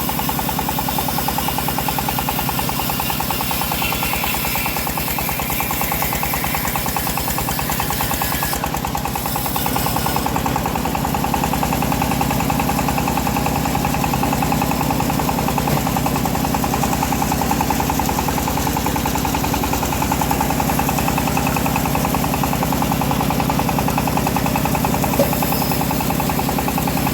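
Homemade bandsaw mill running steadily through a teak log, a constant engine-like drone with a fast, even pulsing and a hiss from the blade.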